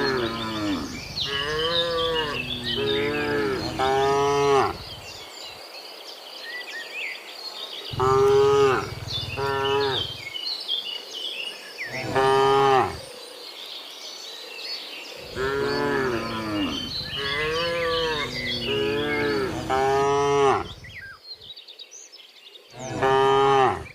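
Several cows mooing, long calls coming in bunches with quieter gaps between them, over faint high chirping in the background.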